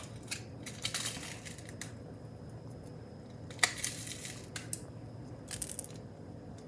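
Candy sprinkles rattling in a plastic shaker bottle as they are shaken out onto a frosted cake, in a few short bursts, with a sharp plastic click about three and a half seconds in.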